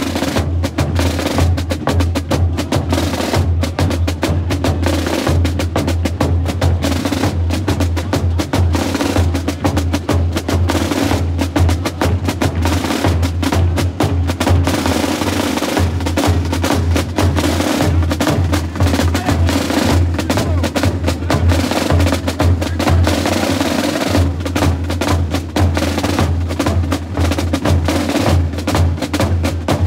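Carnival drum band playing: many snare drums beating a fast, rolling rhythm over the pounding of a big bass drum.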